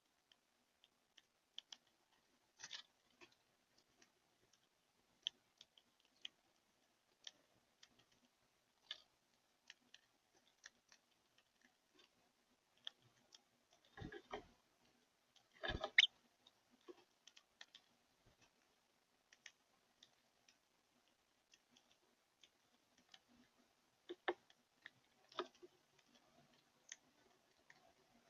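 Faint, irregular clicks and taps, with two louder rustling bursts a little past halfway.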